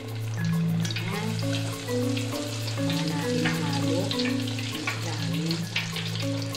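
Chicken frying in hot oil in an electric deep fryer: a steady sizzle dotted with many small crackles and pops. Background music with a bass line plays underneath.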